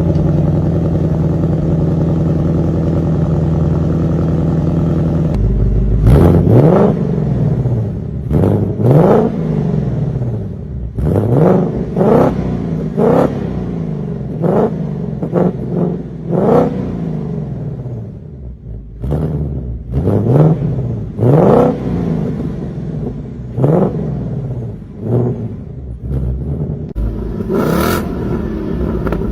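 2024 Ford Mustang Dark Horse's 5.0-litre V8 exhaust: a steady idle for the first five seconds, then a long series of short free revs, each a quick rise and fall in pitch, with about a dozen and a half blips spaced a second or two apart.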